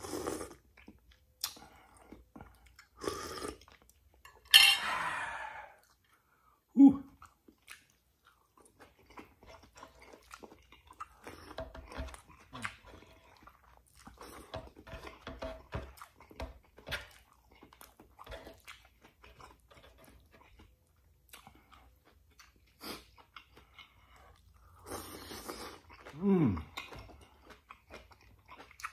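Close-up chewing and crunching as fried milkfish, mussels and rice are eaten by hand. There are loud slurps of garlic butter sauce from a spoon at the start and again about five seconds in. Two short falling vocal sounds come from the eater, one about seven seconds in and one near the end.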